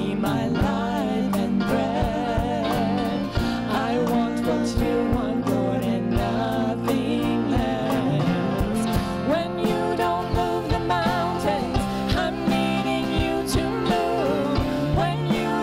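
A worship song played by a band with guitar and drums, with a wavering lead melody over steady chords and regular drum hits.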